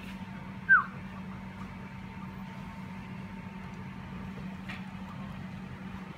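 A steady mechanical hum, with one short, sharp chirp falling in pitch about a second in.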